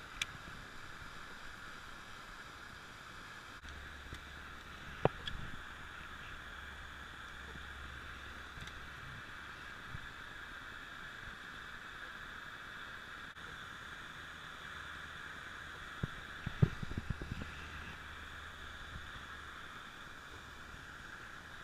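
Faint, steady splashing of pond fountains, with a few light clicks and knocks from handling a fishing rod and reel: one about five seconds in and a small cluster later on.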